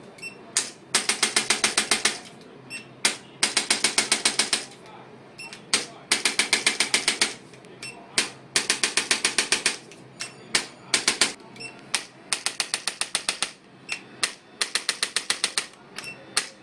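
Handheld electric percussion instrument firing runs of rapid taps, about ten a second, each run lasting a second or so with short pauses between, and a motor hum under each run.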